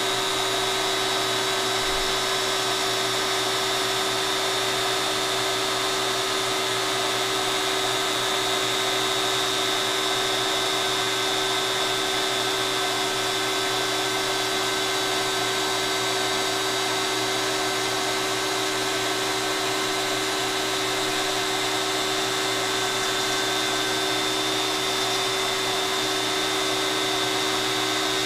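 LowRider CNC's DeWalt compact router running steadily under machine control, a constant high-pitched motor whine over a hiss, as the gantry carries it across a cut.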